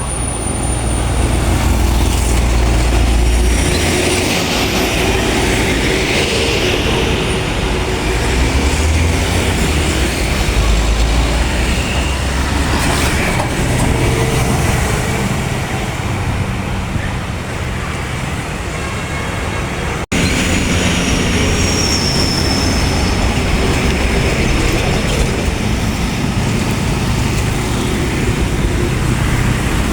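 Road traffic with large buses going past: a continuous low engine rumble mixed with tyre and road noise. The sound breaks off abruptly about two-thirds of the way through and picks up again.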